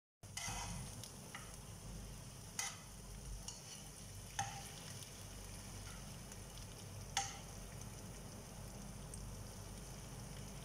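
Sauce-coated chicken wings frying in a nonstick pan, a faint steady sizzle. Tongs turning the wings click against the pan a few times.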